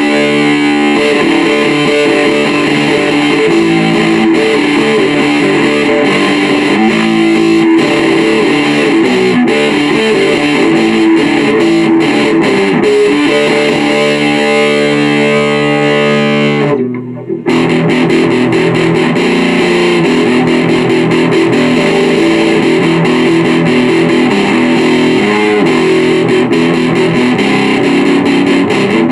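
Electric guitar played through an overdrive pedal, a distorted tone, with notes and chords played continuously and a brief break in the sound about seventeen seconds in.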